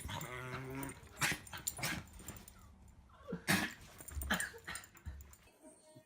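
A dog whining in a wavering tone for about a second, then a few short sharp sounds at irregular gaps.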